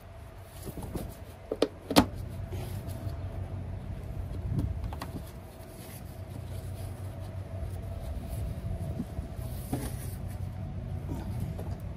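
An engine running steadily, with a few sharp knocks about two seconds in.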